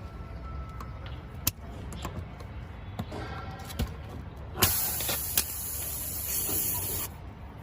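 A few sharp clicks, then a loud rush of hissing air lasting about two and a half seconds that cuts off suddenly, as from an air line or air let out of a tyre during a puncture repair.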